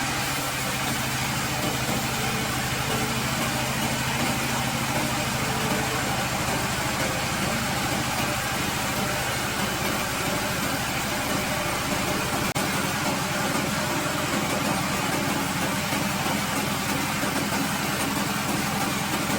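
Woodworking machine running steadily with an even hum and noise, dropping out for a moment about twelve seconds in.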